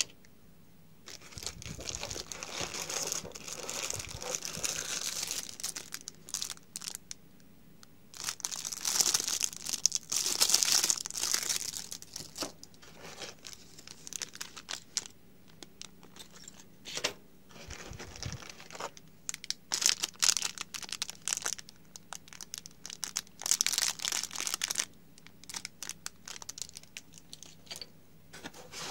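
Plastic packaging bags crinkling as they are handled and unpacked, in irregular bursts with short pauses between them.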